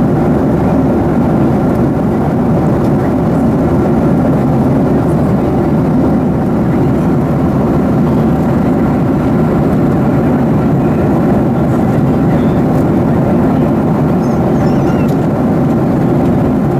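Boeing 737-700 in flight, heard from inside the cabin: a steady low roar of its CFM56-7B engines and the airflow, with a few faint steady hums above it.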